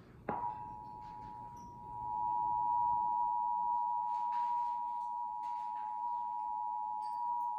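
Emergency Alert System two-tone attention signal: two steady tones sounded together as one continuous alert tone, starting about a third of a second in and growing louder about two seconds in. It marks the start of a broadcast emergency alert.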